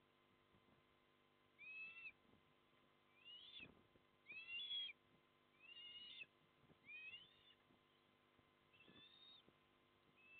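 Osprey calling at the nest: a series of about seven short, high, thin calls, roughly one a second with a few longer gaps, each note rising then levelling off.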